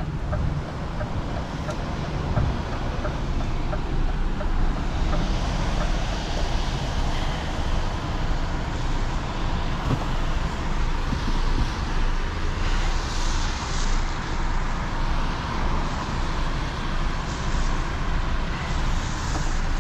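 Diesel engine of a 26-ton Volvo heavy recovery truck running steadily under the load of a towed ambulift, with continuous road and tyre noise, heard from inside the cab.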